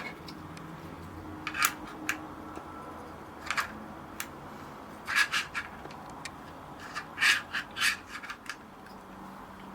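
Hands handling a DJI RS3 camera gimbal, making short rubbing and scraping sounds in several brief clusters.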